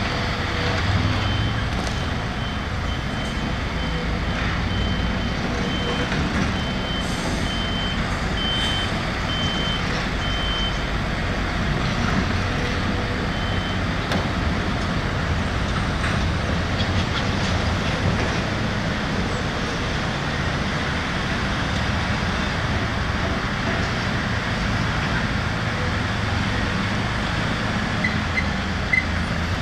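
Heavy diesel machinery running steadily with a deep engine rumble. Over it a reversing alarm beeps about once every 0.7 seconds for the first ten seconds or so, then stops after one last beep.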